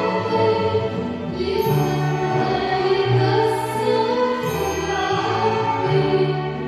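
Live music from a small ensemble of violins and double bass with singers, playing held notes over a bass line that moves every second or so.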